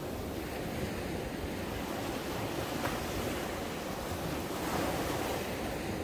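Small sea waves breaking and washing up a sandy beach: a steady hiss of surf that swells about three-quarters of the way through as a wave runs up the shore.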